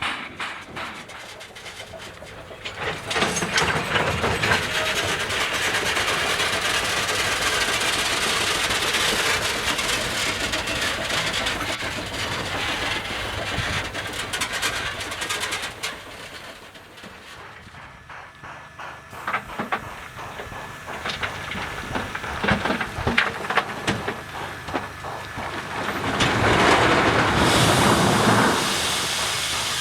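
JS-class steam locomotive and its spoil wagons working. A long stretch of rushing steam-and-rail noise is followed by scattered clanks and knocks from the wagons and running gear, and near the end comes a loud burst of steam hiss.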